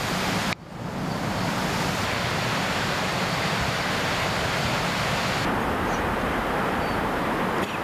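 Steady rushing outdoor noise with no distinct events. It sounds like wind, or like moving water in the distance. It breaks off briefly about half a second in, and its highest part drops away about two-thirds of the way through.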